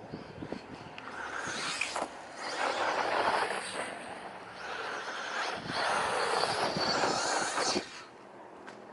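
Brushless electric RC short-course truck driving over rough ground, its tyre and drivetrain noise swelling twice as it runs close by, then dropping away about eight seconds in.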